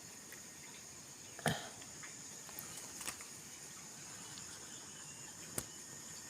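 Steady high chirring of crickets or similar insects, with a few sharp snaps and rustles; the loudest snap comes about a second and a half in.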